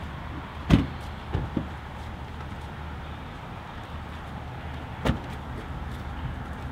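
Car doors shutting: a sedan door slams about a second in, and a pickup truck's door shuts about five seconds in, with two lighter knocks in between. A steady low rumble runs underneath.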